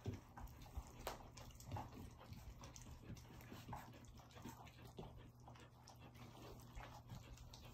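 Almost-four-week-old puppies faintly lapping and smacking at gruel in a steel pan at their first meal, with many small scattered clicks over a low steady hum.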